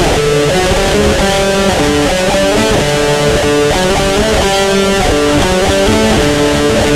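Heavy metal music: distorted electric guitar on a crunch setting with reverb, playing a melodic line of notes that change every fraction of a second over a thick, steady low end.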